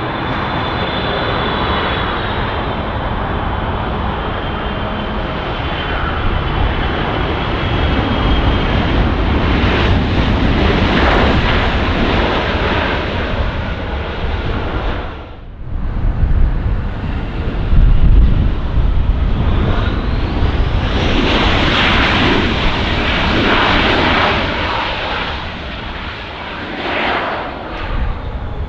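Jet airliner engines, loud and steady with a high whine, as a large jet passes close by. The sound drops out sharply for a moment about halfway through and then comes back just as loud.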